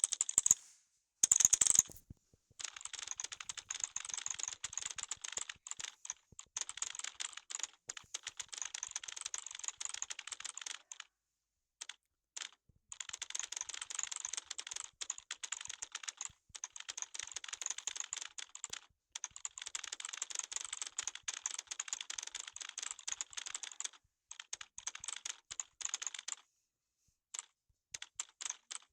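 Typing on a computer keyboard: fast runs of key clicks broken by short pauses, with a louder clatter about a second and a half in.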